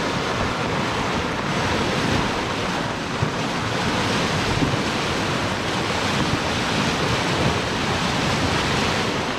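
Muddy flash-flood water rushing steadily down a swollen stream channel.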